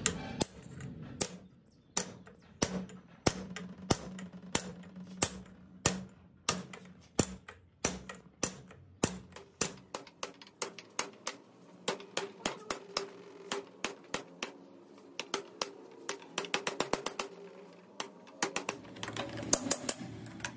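Hammer striking a pointed punch held against the seal of an old wheel hub bearing clamped in a vise. The sharp metallic taps come about one and a half a second, with quick runs of lighter taps near the end.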